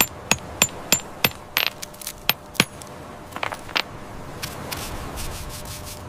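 A steel rock hammer tapping a stone, about three sharp metallic clinks a second, for the first second or so. Then come scattered rougher scraping strokes and fainter sweeps of a stiff brush over the stone.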